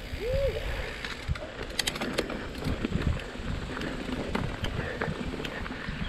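Mountain bike riding over a dirt and loose-gravel trail: tyres crunching and the bike rattling, with scattered clicks. Near the start, one short rising-then-falling bird call.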